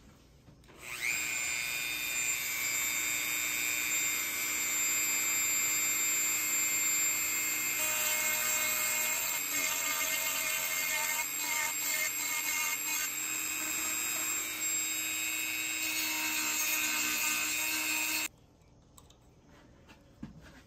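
Dremel rotary tool with a grinding stone spinning up with a rising whine, then running steadily as it grinds down the head of a pocket knife's pin, with rougher grinding chatter partway through. It cuts off suddenly near the end.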